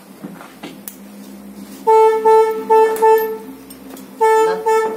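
Vehicle horn honking in short toots: four quick toots in a row, then two more about a second later. Faint clinks of tools sound earlier on.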